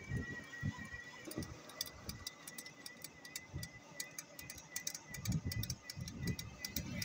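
A moving cycle rickshaw with fast, irregular clicking and rattling. Gusts of wind rumble on the microphone, over a faint steady high whine.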